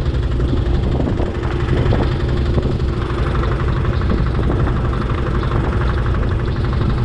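A fishing boat's engine running steadily, a low, even drone with a fine rattle joining in about three seconds in.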